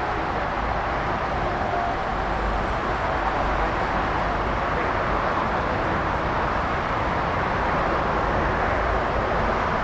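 Jet airliner engines running, a steady, even noise without distinct events.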